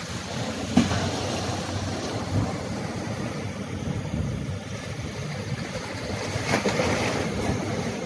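Sea waves washing and breaking on the shore, with a sharp thump about a second in and a louder surge of water near the end; wind rumbles on the microphone.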